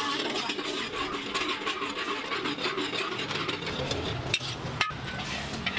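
Metal ladle stirring and scraping in a steel wok as liquid sizzles in it, with a steady frying hiss and small scrapes throughout and a couple of sharper clinks near the end.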